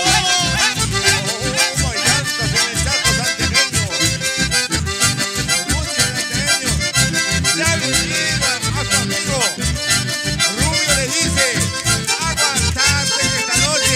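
Live band playing an instrumental passage led by button accordions and a bandoneón, over a steady pulsing bass beat.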